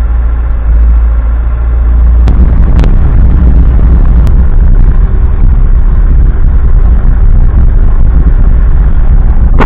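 VAZ-2106 (Lada) car running, heard from inside the cabin as a steady low rumble of engine and road noise. About two seconds in there are a couple of sharp clicks, and after that the rumble is louder while the car drives along.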